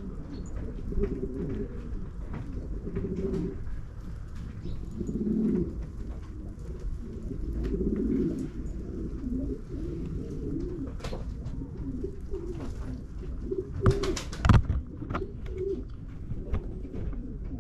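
Domestic pigeons cooing, one low burbling coo after another. About fourteen seconds in there is a brief loud clatter.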